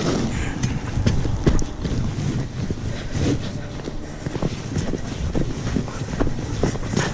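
Dog sled running on a packed snow trail: a steady rumble of the runners on snow with wind on the microphone, and irregular knocks and rattles from the sled.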